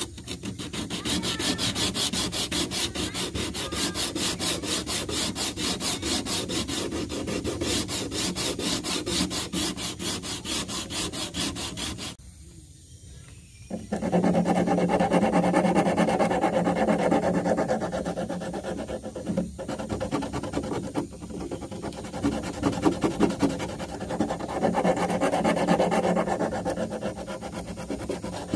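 Coarse 80-grit sandpaper rubbed by hand along the edges of wooden boat ribs in quick, even back-and-forth strokes, smoothing off the sharp edges. About halfway through there is a short pause, then the strokes resume with a lower, duller sound.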